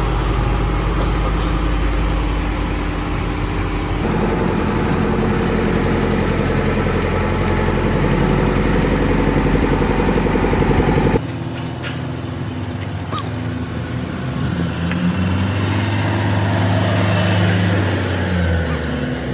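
Engines of heavy road-construction machinery running steadily. The sound changes abruptly twice, about four and eleven seconds in, as if cutting between machines. A few sharp knocks come in the last part.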